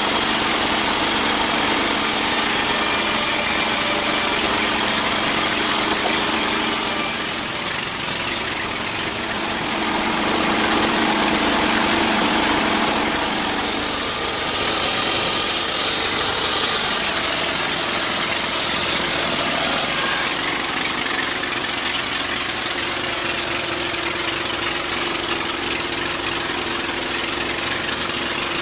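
Sawmill machinery running steadily: a loud engine drone under a broad hiss, changing character around the middle.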